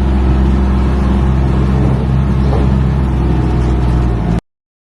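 Steady low hum of a car engine running, heard from inside the car's cabin, cutting off suddenly near the end.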